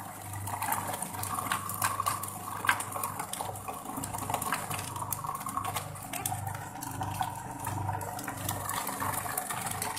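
Electric food processor running, its blade chopping garlic in the plastic bowl, a steady motor hum with scattered clicks and rattles of pieces against the bowl.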